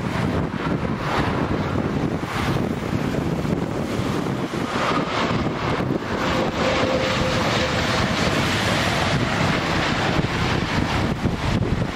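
Strong wind buffeting the microphone in gusts. A faint thin whine shows through about halfway in.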